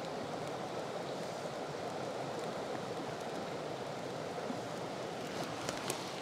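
Steady rushing noise of flowing water, as from a stream. A few faint crackles near the end, from the small birch-bark and fatwood fire as it catches.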